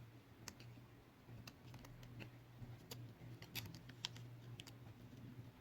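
Faint, scattered light clicks and taps of small repair tools handling a smartphone's opened internals, over a low steady hum.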